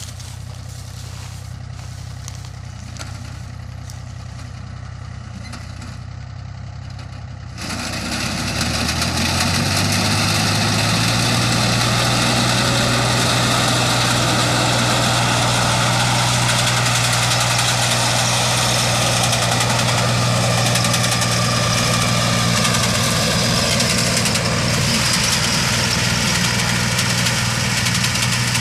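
Tractor engine running while its mounted reaper cuts tall standing crop. About a quarter of the way in the sound gets much louder and the engine pitch rises, then it holds a loud, steady run with a dense noisy wash over the engine hum.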